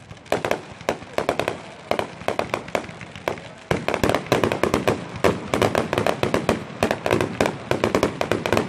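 Fireworks going off in quick succession: a rapid string of sharp bangs and crackles that becomes much denser and louder a little under halfway through.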